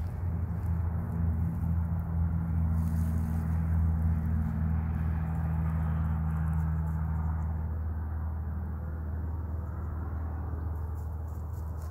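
A low, steady engine hum that swells and then fades away about two-thirds of the way through.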